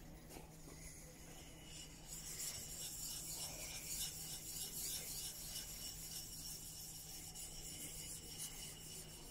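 The flat back of a steel chisel is rubbed back and forth on a wet 300-grit sharpening stone, making a gritty scraping in quick repeated strokes that starts about two seconds in. The back is being lapped flat on the coarse stone to grind out a rounded, uneven corner.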